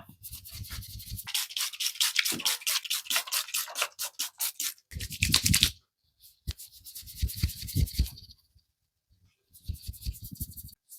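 Brisk rubbing strokes over hair and skin, several a second, coming in a few separate bursts, some with dull low thumps.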